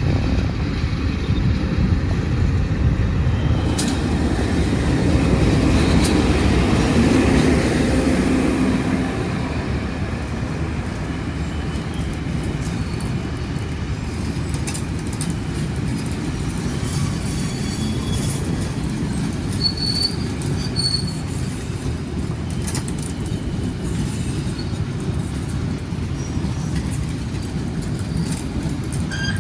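Diesel train running on the track: a steady rumble of wheels and engine, loudest about five to nine seconds in, then carrying on a little quieter, with faint clicks and short high wheel tones.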